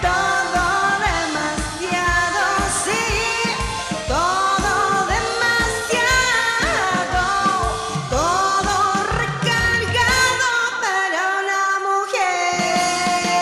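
A woman singing a rock-blues song over a band with a steady drum beat; near the end the bass and drums drop out for about a second and a half while the voice holds a note, then the band comes back in.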